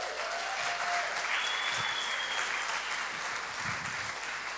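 Congregation applauding: many people clapping steadily.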